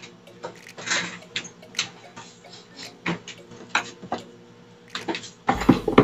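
Microwave oven running on test with its cover off after a blown fuse was replaced: a steady low hum with light, irregular ticking and clicking. Near the end a deeper hum and a few louder knocks come in.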